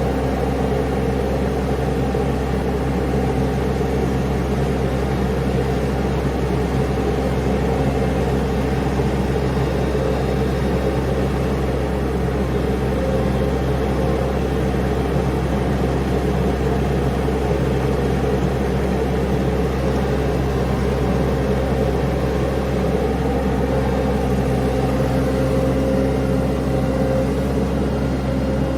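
Mini skid steer's engine running steadily, with an unchanging low drone.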